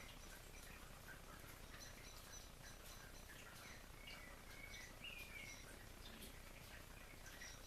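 Quiet ambience: faint, scattered bird chirps over a steady background hiss.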